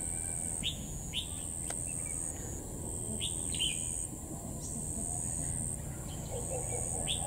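Red-whiskered bulbul giving short, sharp chirping notes, mostly in pairs, several times, over a steady high-pitched whine in the background.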